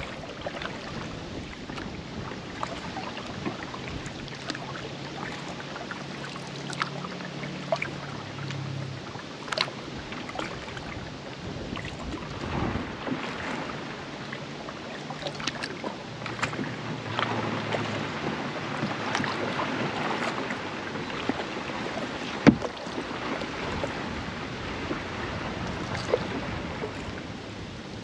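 Kayak being paddled: water splashing and dripping off the paddle blades, with small clicks and knocks. A low droning hum comes and goes, and a sharp knock a little over two-thirds through is the loudest sound.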